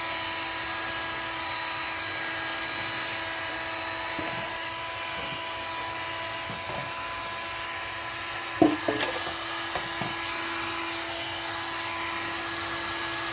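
Electric heat gun running on high: a steady fan whine over a rush of hot air. A brief knock sounds about nine seconds in, with a few lighter taps after it.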